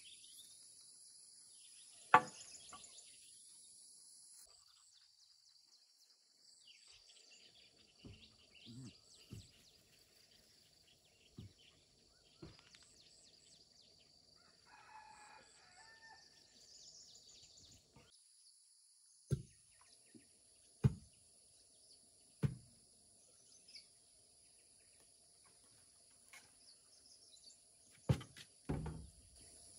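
Steady high insect drone with bird chirps, a short chicken call near the middle, and a handful of sharp separate knocks from work on a bamboo fence, the loudest about two seconds in.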